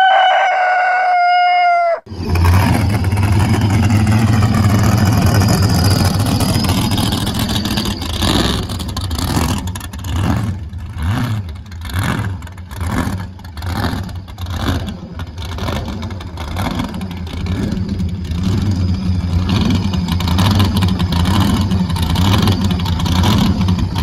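A rooster crowing for the first two seconds. Then a loud supercharged drag-car engine in a Ford Fairmont runs on, revved in quick repeated blips a little more than once a second from about eight seconds in.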